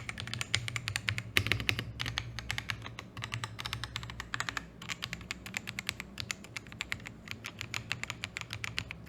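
Fast typing on a mechanical keyboard with Gateron Milky Yellow Pro linear switches and PBT doubleshot keycaps, a steady run of quick keystrokes with a few louder key strikes, probably the spacebar, about one and a half seconds in.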